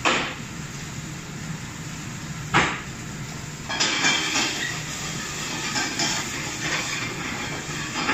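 Food sizzling and hissing in a hot pan on a commercial gas range, growing louder about four seconds in, after two sharp metal clanks. The steady hum of the kitchen's extraction hood runs underneath.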